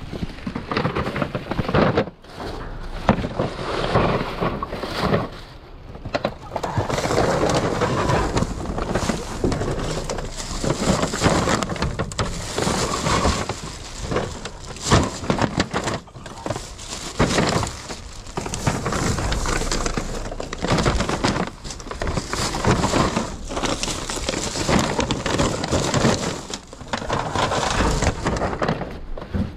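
Plastic trash bags and packaging rustling and crinkling as items are handled and moved around, with many short crackles and knocks.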